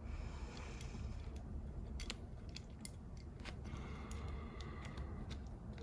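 Scattered small clicks and taps as parts of a convertible-roof hydraulic pump motor are handled and fitted together, over a low steady hum.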